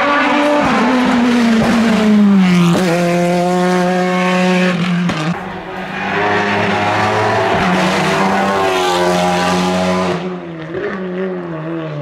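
Hill-climb race cars at full throttle. A sports prototype's engine note falls away as it passes, then a touring car's engine pulls hard through its gears, holding a high steady note before easing off near the end.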